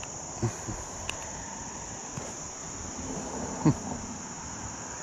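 Steady high-pitched chorus of summer insects, crickets or similar, running unbroken, with a few brief soft knocks from the fish and line being handled; the loudest comes late.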